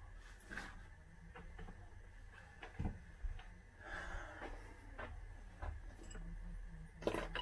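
Faint knocks and clicks of someone handling things on a workbench, over quiet room tone, with a louder knock or two near the end.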